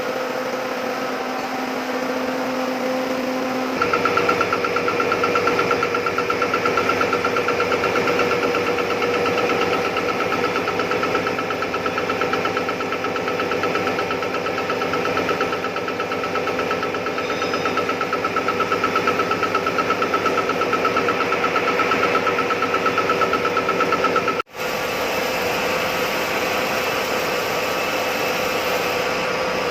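Metalworking machine tool running steadily under cut, a steady high whine joining and the sound growing louder about four seconds in; the sound drops out for an instant near the end, then carries on.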